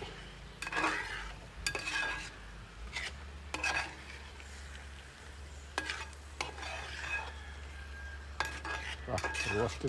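Metal spatula stirring and scraping thick crab roast masala around a metal pot, with irregular scrapes and clinks. A low sizzle of the masala frying in coconut oil runs beneath.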